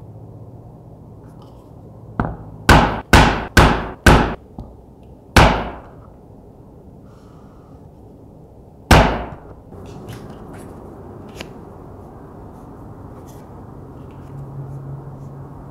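Mallet striking a multi-prong pricking iron through leather on a work board: a light tap, then four sharp knocks in quick succession, one more a second later and a last one after a pause. Afterwards, small light taps and rustles of leather pieces being handled.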